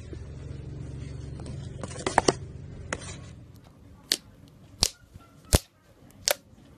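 Thick creamy slime poked with the fingertips, giving four sharp pops of trapped air about two-thirds of a second apart. Before that comes a low steady rumble with a quick cluster of crackling clicks as glossy clear slime is folded.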